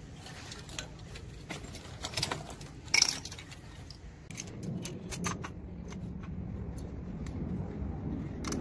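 Small metal engine parts clinking and tapping as they are handled, in scattered sharp clicks with the loudest clink about three seconds in. A steady low rumble comes in about four seconds in and continues under the clinks.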